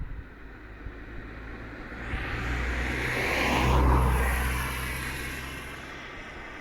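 A vehicle passing close by, its engine hum and noise building to a peak about four seconds in and then fading away.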